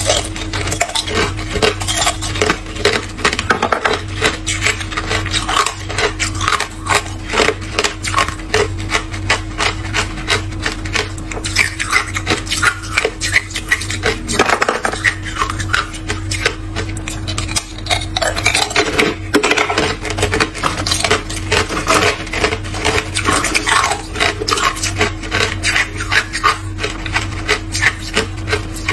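Hard clear ice being bitten and chewed close to the microphone: dense, continuous crunching and cracking, over a steady low hum.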